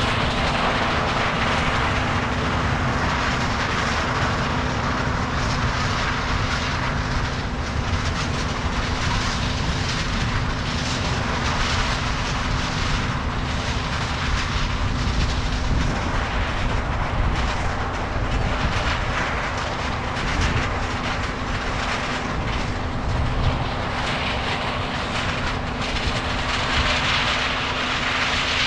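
Heavy diesel harvest machinery running steadily at work: a continuous engine drone with a constant hum and a rushing, machine-driven noise, with no stops or changes.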